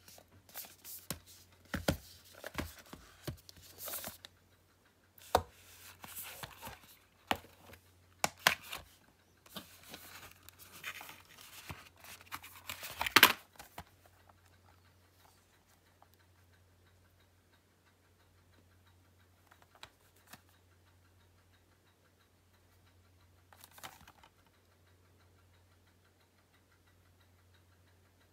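Packaging and Blu-ray steelbook cases being handled and unwrapped: bursts of tearing, crinkling, scraping and clicks for about the first fourteen seconds, then only a couple of brief rustles. A steady low hum runs underneath.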